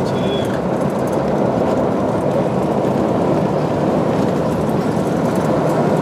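Vehicle driving on an unsealed dirt road, heard from inside the cabin: a steady rumble of engine and tyres on the dirt.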